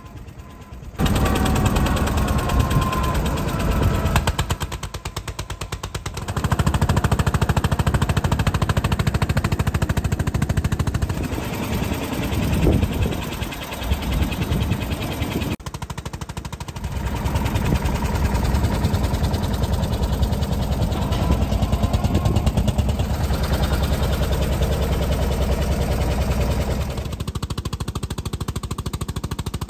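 Small vintage tractor's engine chugging under way with a rapid, even knocking beat, heard from a seat on the tractor itself.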